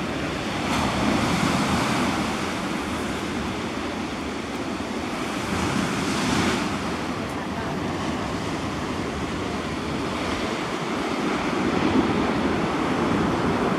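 Sea surf breaking and churning against rocks below a cliff, a steady wash that swells now and then as waves come in, with some wind on the microphone.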